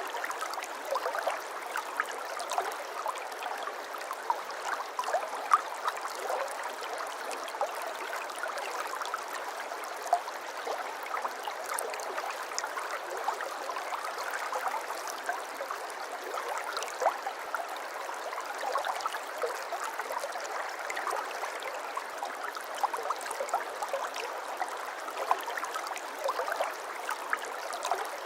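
Water running steadily over stones in a small stream, a continuous babbling with many small splashes and gurgles.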